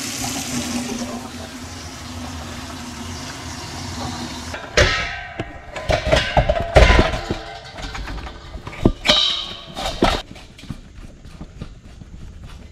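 Water from a faucet pouring steadily into a kitchen sink, with a little rust in it as the freshly refilled water heater tank fills. About halfway through it gives way to a run of sharp knocks and clattering handling bumps.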